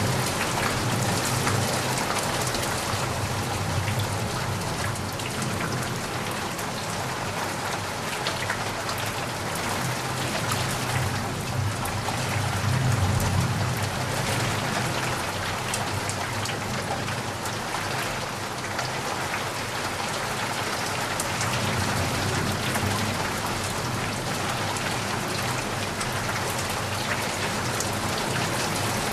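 Heavy rain falling steadily, a dense hiss of pattering drops. A low rumble swells and fades about halfway through.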